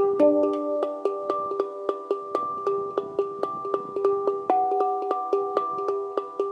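Harmonic Art "La Sirena" handpan played with the fingertips: a steady run of quick strikes, about three to four a second, with the struck notes ringing on and overlapping.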